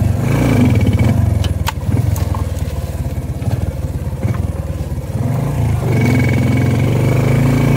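Bajaj CT 100's small single-cylinder four-stroke engine running as the motorcycle is ridden over rough ground. It eases off a little in the middle and picks up again about six seconds in, with a few knocks and rattles from the bike over the bumps.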